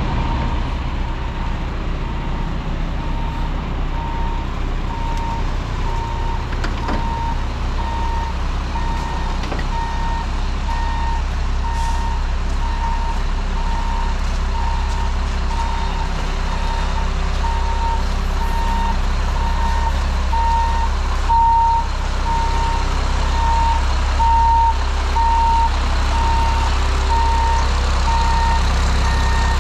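A heavy truck backing up: its backup alarm beeps about once a second over the steady running of its diesel engine.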